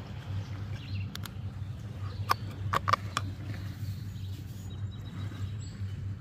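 Fishing rods with spinning reels being handled and set down: a few sharp clicks and knocks, loudest about halfway through, over a steady low rumble.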